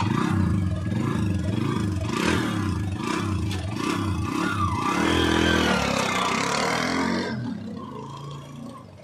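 TVS Victor GX motorcycle's freshly rebuilt 110 cc single-cylinder four-stroke engine running and revved in short pulses, then a rising note about five seconds in as the bike pulls away, fading out as it rides off near the end.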